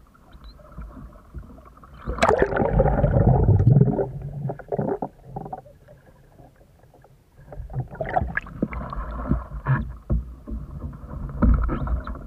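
An airbag-filled open canoe capsizing with a loud splash about two seconds in, then a muffled underwater stretch with gurgling. From about eight seconds in, water splashes and sloshes as the boat is rolled back upright, swamped.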